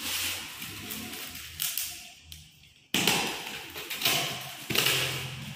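Cardboard shipping box being opened by hand: packing tape cut and torn and cardboard flaps scraped and pulled back, with light taps and knocks.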